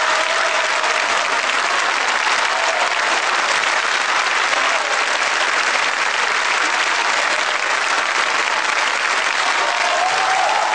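Large audience applauding steadily, a dense continuous clapping.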